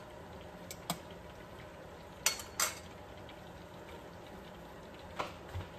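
Breaded chicken fingers deep-frying in a small saucepan of oil: a steady sizzle. A few sharp clicks of metal tongs against the pot come through it.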